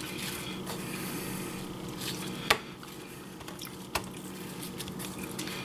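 A metal spoon spreading Cheez Whiz over a flour tortilla on a ceramic plate: soft scraping and stirring, with two sharp clicks of the spoon against the plate about two and a half and four seconds in. A steady low hum runs underneath.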